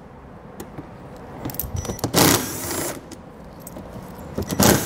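Cordless driver running in two short bursts, about two seconds in and again near the end, backing T15 Torx screws out of a plastic wheel well liner.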